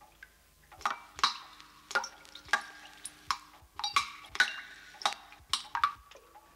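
Rainwater dripping from a leaking roof into metal buckets and pails: irregular sharp plinks, each ringing briefly, about two a second, starting about a second in.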